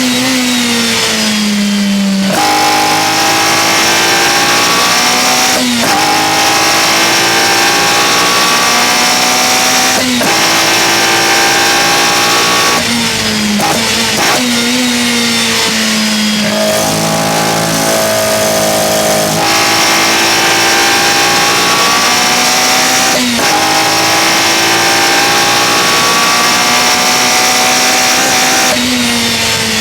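Toyota 4A-GE 1.6-litre 16-valve four-cylinder on individual throttle bodies, pulled hard under full throttle. Its pitch climbs steadily through each gear and drops sharply at each shift, about eight times.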